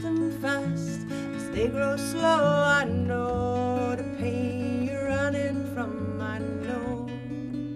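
Folk song: several women's voices singing in harmony over a strummed acoustic guitar, with a bodhrán frame drum.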